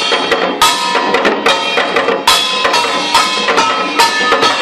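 Kkwaenggwari, small Korean hand-held brass gongs, played in a jjaksoe duet: fast, dense metallic strikes with ringing tones, and heavier accented hits about once a second.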